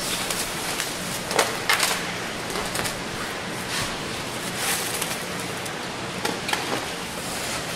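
Clear plastic protective wrapping on a new motorcycle crinkling and rustling in short bursts as it is handled, over a steady hiss.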